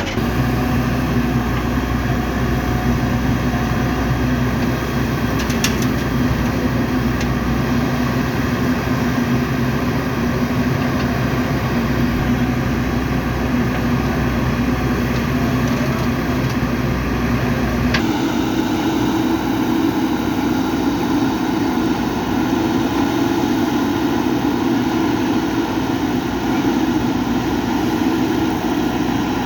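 Heavy diesel engine running steadily, its tone changing suddenly about eighteen seconds in as the deep rumble drops away.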